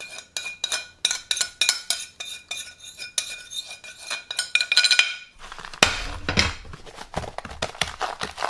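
Metal spoon scraping and tapping on a ceramic plate, the plate ringing lightly, as a dry spice rub is knocked off into a plastic tub. From about five seconds in, the spoon stirs and scrapes the dry rub around in the plastic tub.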